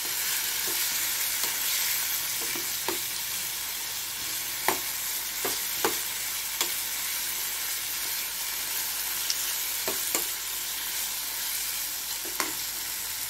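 Boneless chicken pieces frying in oil in a nonstick frying pan with a steady sizzle. A spoon knocks and scrapes against the pan now and then as the chicken is stirred.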